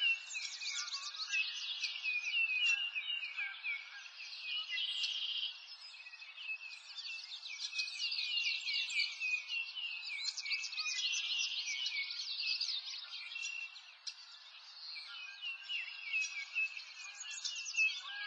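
Many small birds chirping and trilling at once, a dense chorus of quick high chirps over a faint hiss, with no low sounds at all.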